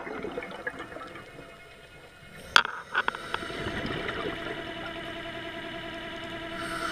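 Underwater bubbling and rushing water, as of a scuba diver's exhaled bubbles, with a faint steady hum beneath. A sharp click sounds about two and a half seconds in, followed by a smaller one.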